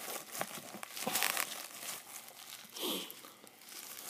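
Plastic coin sleeves and bubble wrap crinkling and crackling in irregular bursts as they are handled, with a short downward-gliding sound about three seconds in.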